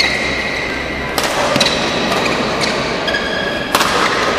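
A badminton rally: three sharp racket strikes on the shuttlecock, the loudest right at the start, one about a second in and one near the end, with shoes squeaking on the court between them.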